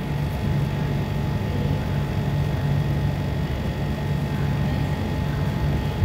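Steady low background hum with no speech, even throughout, its energy concentrated in the low range.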